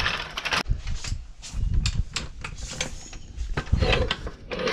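A run of sharp clicks and knocks with a few heavier low thuds: footsteps on gravel, then a steel floor jack being handled and set in place under a car.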